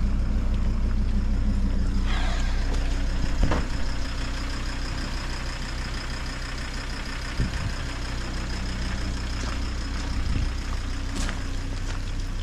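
A vehicle engine idling steadily. About two seconds in there is a short falling squeal, and there are a few light knocks.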